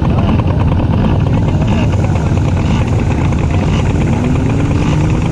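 Motocross bike engines running at race speed, loud and steady, with one engine revving up in pitch near the end.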